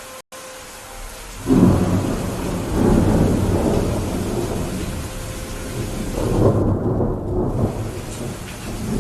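Steady rain with a long roll of thunder that breaks out about a second and a half in and rumbles on, swelling again near the end. The sound cuts out for a split second just after the start.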